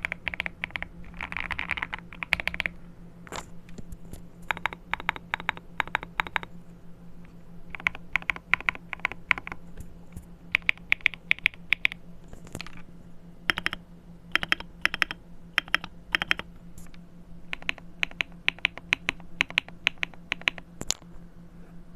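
Clacky typing on an MK870 mechanical keyboard with lubed KTT Strawberry linear switches and Akko keycaps. Keystrokes come in quick runs of a second or two, separated by short pauses.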